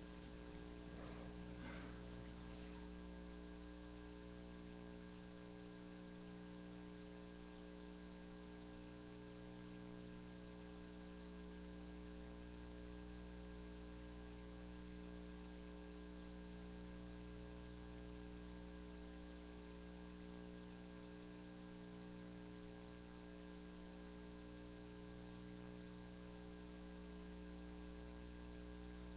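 Steady electrical mains hum with a faint hiss, at a low level: the background of the recording chain between programme items.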